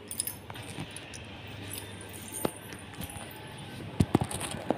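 Phone handling noise while walking: scattered sharp clicks and knocks with light jangling, and a cluster of louder knocks about four seconds in.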